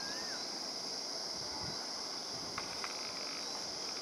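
Steady outdoor background dominated by a constant high-pitched insect drone, with a short whistled chirp at the very start and two faint ticks about two-thirds of the way in.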